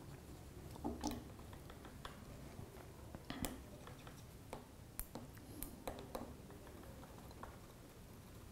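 Faint, irregular scrapes and ticks of a small metal tool dragged and tapped across a Huawei Nova 3i's glass in a scratch test.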